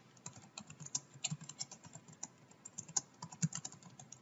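Typing on a computer keyboard: quiet, quick, uneven key clicks, about five a second, as a line of text is typed.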